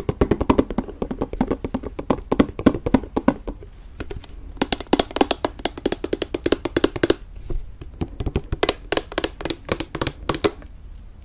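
Fingernails tapping quickly on a plastic Greek yogurt tub, in dense runs of clicks. The taps sound fuller and lower at first and brighter from about halfway, and thin out briefly in the second half.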